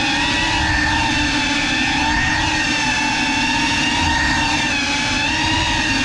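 GEPRC CineLog35 ducted cinewhoop's four brushless motors and propellers whining steadily at cruising throttle, the pitch wavering slightly up and down with small throttle changes, heard through the onboard GoPro with a rough rumble of prop wash underneath.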